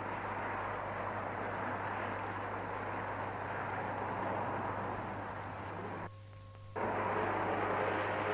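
Steady outdoor street noise, a wash of city traffic, with a constant low hum beneath it. About six seconds in, the sound cuts out for under a second, leaving two faint steady tones, then comes back slightly louder.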